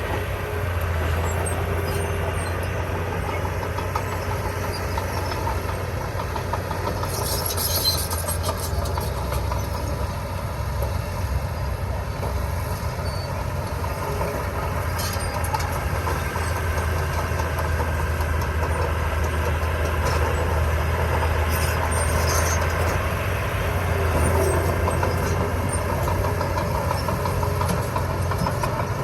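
Heavy diesel construction machinery running steadily, a deep continuous engine drone. Brief high-pitched metallic squeaks or clatters come through about 7 seconds in and again around 22 seconds.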